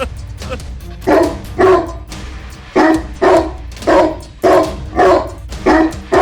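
A dog barking repeatedly in short barks, about two a second through the second half, over background music.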